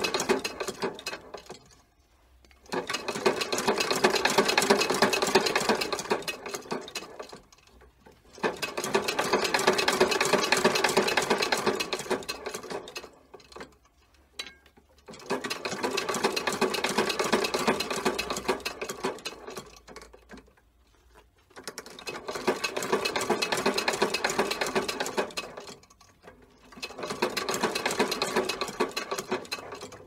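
A shoemaker's sewing machine stitching in runs of rapid, even strokes, each several seconds long. Each run starts strong and tapers off before a pause of about a second.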